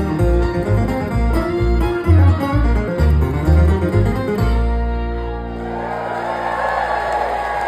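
Live bluegrass string band with banjo and guitar picking over a pulsing bass, closing about halfway through on a held final chord that rings out. The crowd starts cheering as the chord fades.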